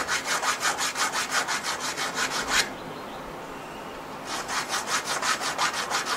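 A small triangular hand file rasping back and forth in the thread grooves of a cut metal lead screw, in quick strokes several a second: two runs of filing with a pause between them. It is deburring the cut end, taking off the burr the cutoff wheel folded over on the five-start thread.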